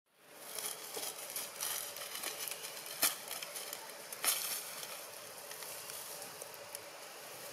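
Dry leaf litter crackling and rustling, with many small ticks, a sharp snap about three seconds in and another about a second later.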